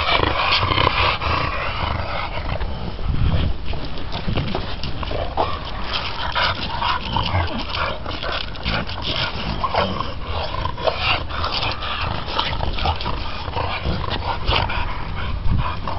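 Two leashed bulldogs meeting and sniffing each other, making many short dog noises throughout, with no clear barking.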